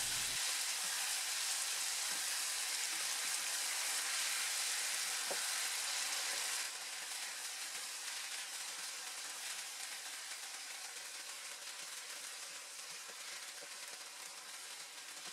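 Chicken and zucchini stir-fry sizzling in a frying pan in its final minute of cooking, with light scrapes as it is tossed with a spatula and wooden spoon. The sizzle drops noticeably about halfway through and then slowly fades.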